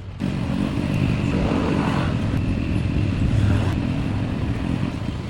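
Road traffic: a motor vehicle, likely a motorcycle, running close by with a steady low engine rumble that comes in suddenly at the start.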